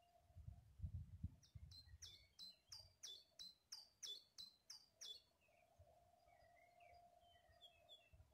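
A songbird singing a fast, evenly repeated phrase of short high notes for about three and a half seconds, then a few fainter chirps. A low rumble comes before the song, and a faint steady hum follows it.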